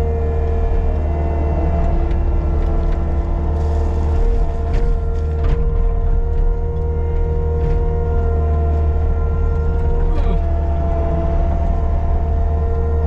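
Caterpillar 299D2 compact track loader's diesel engine running steadily under work, with a steady hydraulic whine and a few sharp knocks from the machine as it pushes and packs driveway material.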